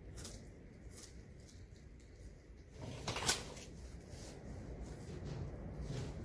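Faint handling noise of masking tape being laid and pressed along a car door gap by hand: light ticks and rustles, with one louder rustle about three seconds in.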